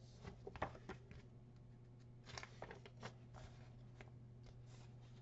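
Faint rustling and crinkling of a picture book's paper pages being handled and turned, in a few short bursts over a steady low hum.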